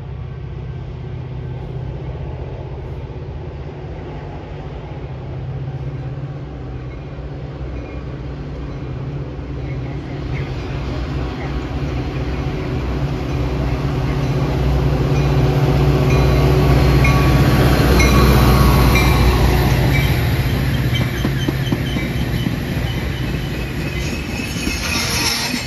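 Metra commuter train of stainless-steel bilevel cars approaching and passing: a diesel locomotive's low drone builds to its loudest about two-thirds of the way through, followed by the rush and rattle of the passing cars' wheels on the rails.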